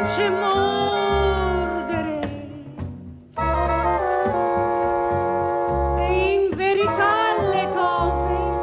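Live jazz ensemble of saxophones, trumpet and trombone over bass and drums, holding sustained chords while a woman sings a wavering melodic line over them. About three seconds in the music thins and fades briefly, then the horns come back in together on a held chord.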